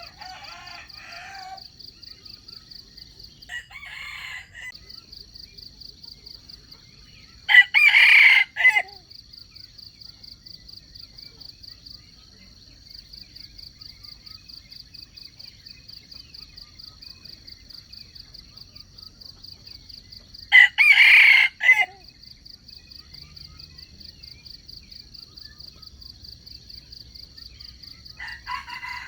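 Junglefowl roosters crowing: two loud crows about 8 and 21 seconds in, with fainter crows near the start, about 4 seconds in and near the end. A steady, rapidly pulsing high insect drone runs underneath.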